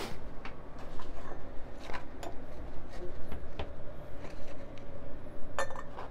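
A glass coffee server and a pour-over dripper with a paper filter set down on a digital scale: a string of light clinks and knocks, with a sharp one at the start and a close cluster of the loudest near the end.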